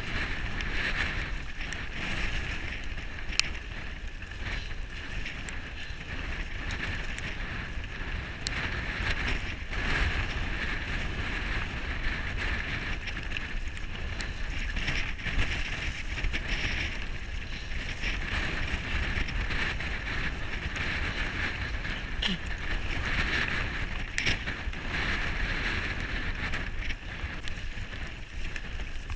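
Mountain bike riding down a stony gravel track: steady tyre noise over loose stones with rattling and a few sharp knocks, and wind rumbling on the microphone.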